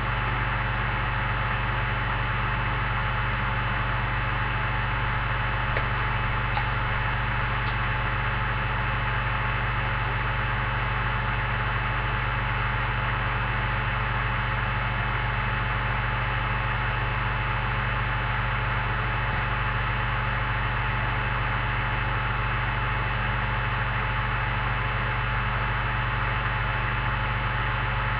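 Steady electrical hum with hiss, a constant tone over even noise with no distinct events.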